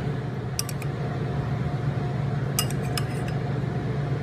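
Metal spoon clinking lightly against a ceramic bowl and plate while dressing is spooned out: a few light clicks just under a second in, then a short cluster of them around three seconds in, over a steady low hum.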